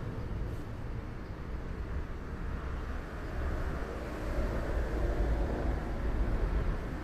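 Steady low rumbling background noise, a little louder from about halfway through.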